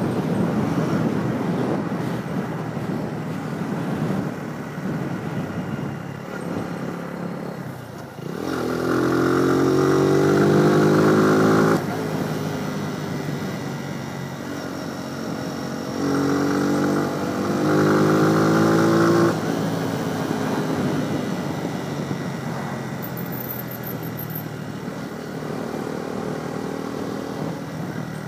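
Faired sport motorcycle being ridden: the engine note climbs steadily in pitch as it accelerates from about eight seconds in, drops back near twelve seconds, then climbs again from about sixteen seconds with a gear change in the middle. Between the pulls it runs more evenly under a steady rush of wind on the microphone.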